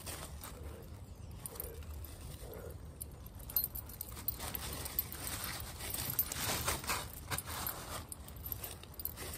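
Dry fallen leaves crackling and rustling close to the microphone, with scattered sharp clicks, as a body moves on the leaf litter during push-ups. The crackling is busiest a little past halfway.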